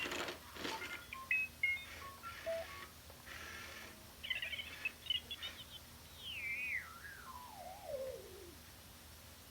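A toy Star Wars droid speaking in electronic droid sounds through its small speaker: a string of short beeps at different pitches and quick warbles, then a long warbling whistle that falls steadily in pitch for about two seconds.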